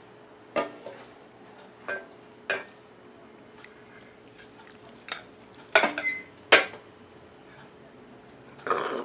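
Metal tongs, a serving spoon and a fork clinking and knocking against ceramic dinner plates and the cooker pot: about seven separate clinks, the loudest pair about two-thirds of the way through, one with a brief ring. A short rough scrape comes near the end.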